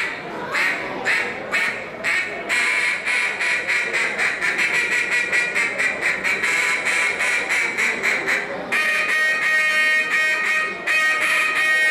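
Mallard duck call blown by a contest caller in a competition routine: a run of quacks that quickens into a fast, rattling run of notes, then switches about nine seconds in to clearer, ringing quacks.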